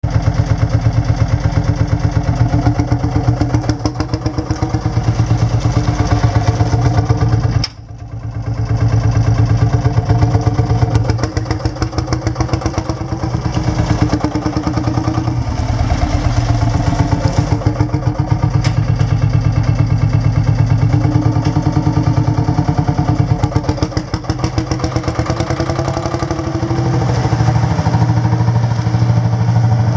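Lanz D4090 tractor engine running under way, with a steady rapid pulsing beat. About eight seconds in the sound drops sharply for a moment, then picks up again.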